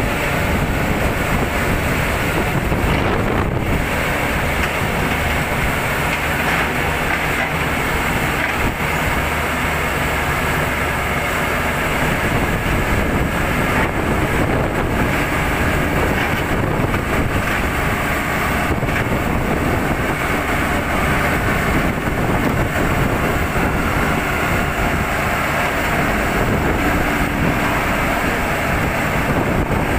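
The diesel engine of a SANY single-drum vibratory roller running steadily as the roller drives down a truck's loading ramp onto the ground.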